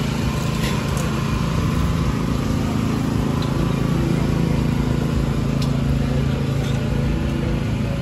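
An engine running steadily at constant speed: an even, low hum that does not change.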